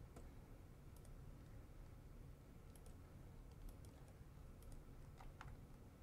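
A handful of faint laptop keyboard clicks, irregularly spaced, as values are typed in, over quiet room tone.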